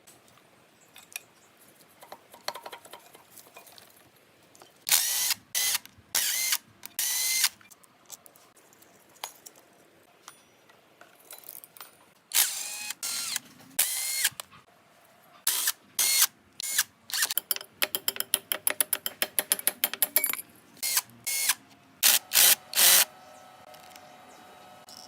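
A ratchet clicking in short, loud bursts of strokes with quiet gaps between them, then a run of fast clicks as it is spun freely.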